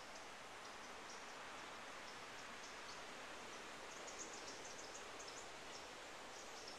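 Faint outdoor ambience: a steady soft hiss with small birds giving short, high chirps, busiest about four seconds in.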